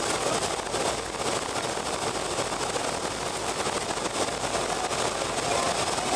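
Cabin noise inside a BAe Avro RJ85 taxiing: a steady rush from its four Honeywell LF507 turbofans at low power, heard through the fuselage, with a faint high whine over it.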